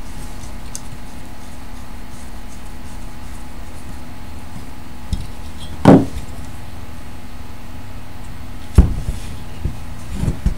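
Metal parts of a vintage carbon stack voltage regulator knocking as they are fitted back together and set on a wooden table: two sharp loud knocks, one about six seconds in and one about nine seconds in, then a few lighter clicks. A steady hum runs underneath.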